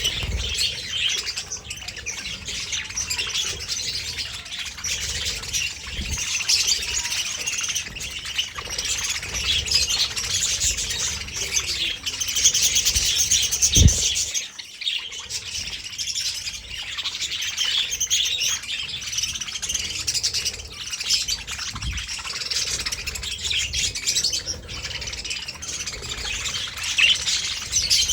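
Budgerigars chattering and chirping nonstop, many calls overlapping, with one dull thump about halfway through.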